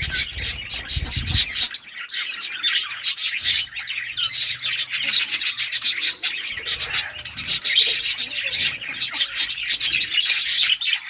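Lovebirds chirping and chattering in a dense, rapid stream of short, high-pitched calls that overlap with no pause.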